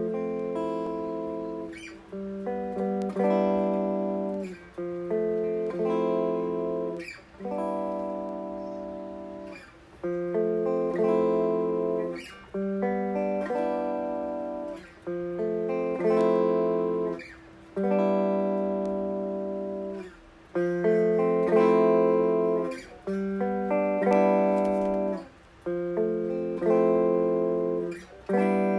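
Guitar improvisation: chords struck one after another and left to ring and fade, a new chord every one to two seconds, with brief breaks between phrases.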